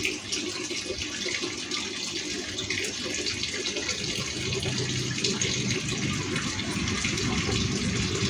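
Aquarium water running and splashing steadily, growing slightly louder toward the end.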